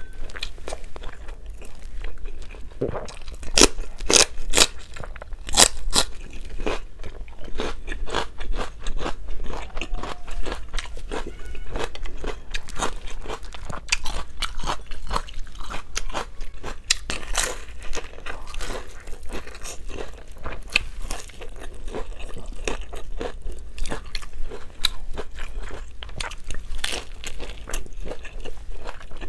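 Close-miked eating: crunchy bites and chewing, with the loudest crisp crunches about four to six seconds in. Near the end she bites into a fried vegetable spring roll (lumpia).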